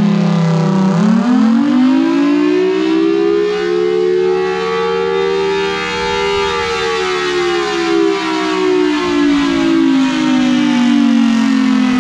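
Federal Signal Thunderbolt 1003 tornado siren sounding a wail: its pitch dips about a second in, winds up for about five seconds, then slowly falls again.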